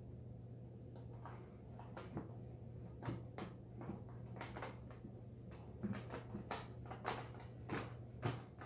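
Hands smoothing paste-soaked paper strips over a rubber balloon: a run of short, irregular rustles and clicks, several a second from about two seconds in, over a steady low hum.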